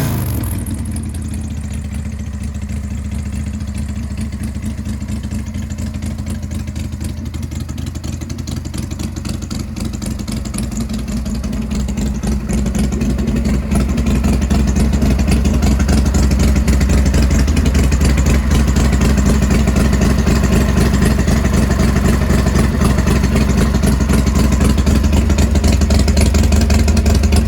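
Big Dog Pitbull motorcycle's S&S 107 cubic-inch V-twin idling steadily. It grows louder a little under halfway through and then holds steady.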